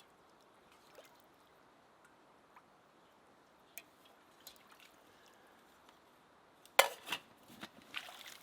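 Meltwater dripping, a few scattered drops over a faint steady hiss. Near the end comes a sudden loud knock, followed by a quick run of smaller knocks and scuffs.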